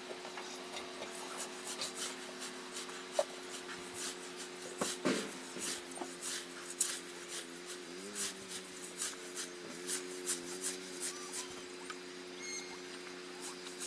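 Sped-up scything: a scythe blade swishing and rasping through long grass in quick, uneven strokes. About five seconds in there is a short gliding call, cattle mooing raised in pitch by the speed-up so that it sounds goose-like.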